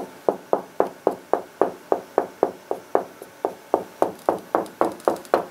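Tapping along a wall to find the studs behind it, about three even knocks a second. The knocks sound the same all the way along, giving no sign of a stud.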